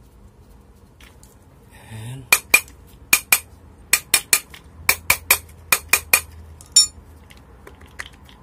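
Sharp metallic taps on an exhaust fan motor's metal housing as it is struck with a hand tool. There are about fourteen taps in quick groups of two or three.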